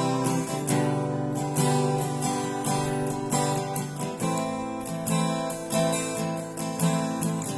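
Cutaway acoustic guitar played by hand in a steady chord pattern, new notes sounding about every half second over ringing chords. This is the guitar's bare tone, with no sticker on its body.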